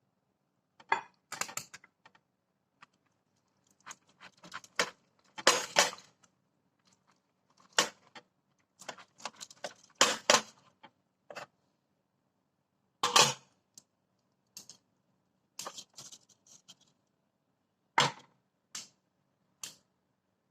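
Irregular clicks and clatters of kitchen utensils handling the cooked barbecue spare ribs. Some are short sharp knocks and others are longer scraping clatters, the loudest a little after five seconds, around ten seconds and around thirteen seconds in.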